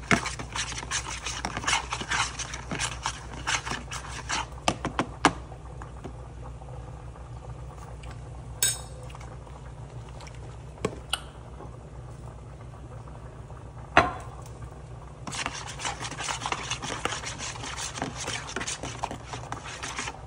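Utensil stirring sauce in a small bowl: quick scraping and clinking strokes against the bowl's sides, which stop for several seconds in the middle, broken by a few single knocks (one loud), then start again near the end.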